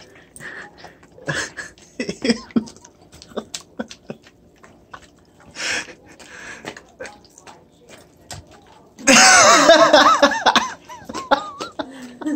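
Golden retrievers licking and smacking at peanut butter on fingers: scattered wet licks and lip-smacking clicks. About nine seconds in, a loud, high, wavering burst of a person's voice for about a second and a half.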